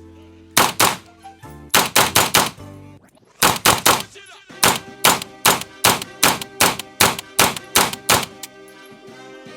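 Rifle fired rapidly in semi-automatic: quick groups of two to four shots, then a steady string of about three shots a second, over background music.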